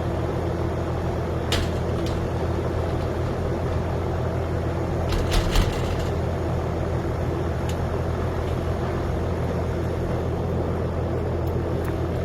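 Steady low drone of an idling engine or motor running throughout, with a few short clicks and taps on top; the loudest is a quick cluster about five seconds in.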